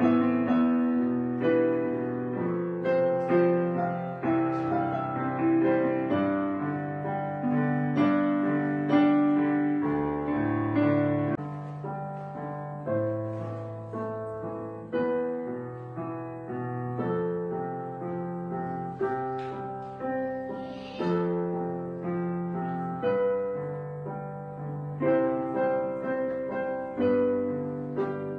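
Background piano music: melody notes and chords struck at an even, unhurried pace, each fading after it is played.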